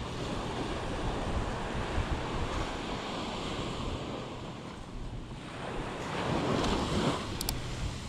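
Ocean surf washing on a beach, with wind buffeting the microphone; a wave surges louder about six to seven seconds in.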